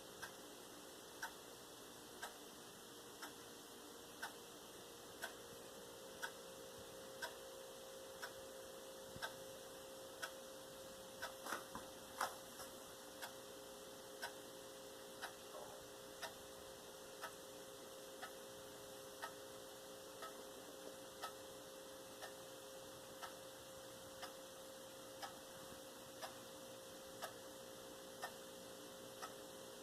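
A clock ticking faintly and evenly, about once a second, over a low steady hum. A few extra small clicks come about eleven to twelve seconds in.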